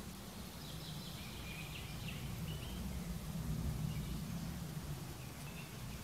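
Wild birds singing in woodland: a short run of bright song notes in the first half, then a few faint chirps, over a steady low rumble.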